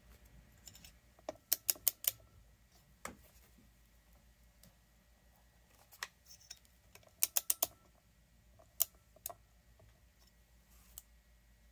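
Ratchet of a torque wrench clicking in short runs of four or five clicks, with single clicks between, as the flywheel nut of a chainsaw is tightened down.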